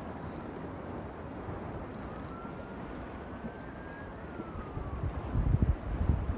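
Steady wind noise by the ocean, with heavy gusts buffeting the microphone from about five seconds in. A faint high whine rises and then falls in the middle.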